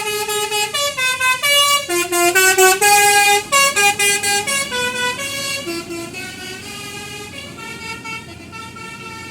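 A bus's basuri telolet horn, a multi-tone air horn, plays a rapid tune of changing notes. It grows louder to about three seconds in, then fades.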